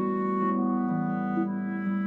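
Background music: a slow melody of held woodwind-like notes over soft accompaniment.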